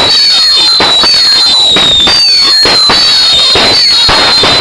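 Consumer firework whistling and crackling: a shrill high whistle that slides slightly down in pitch and starts over about once a second, over a dense run of crackling pops.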